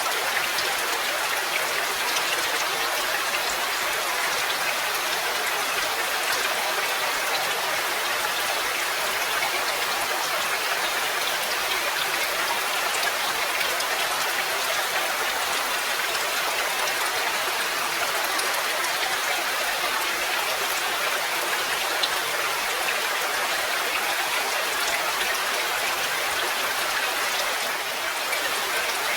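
Steady rain falling, an even hiss of rainfall with fine patter of individual drops.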